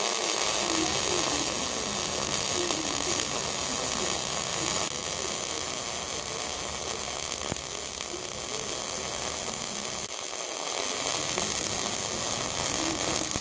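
Welding arc giving one continuous, steady hiss as a silicon bronze bead is run along a sheet-metal seam.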